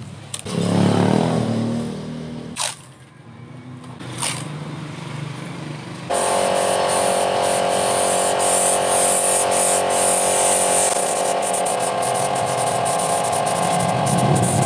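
Paint spray gun hissing steadily over a steady hum as black paint is sprayed onto a masked body panel, starting suddenly about six seconds in. Before it, a motor sound swells and fades and there are two sharp clicks.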